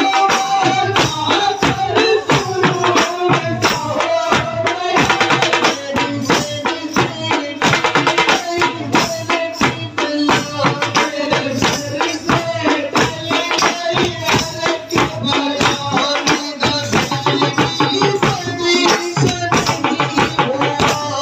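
Live street band of dhol barrel drums beaten in a fast, steady rhythm, with jingling percussion and a wavering melody line over the drums.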